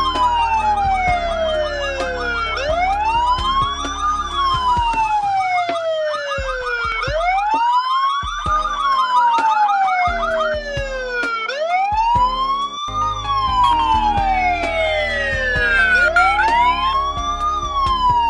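D3D D6026XZ IP camera's built-in alarm siren sounding, set off by the paired door sensor while the system is armed. It is a wailing tone that rises quickly and falls slowly, repeating about every four and a half seconds, with a fast warbling tone layered over it at times.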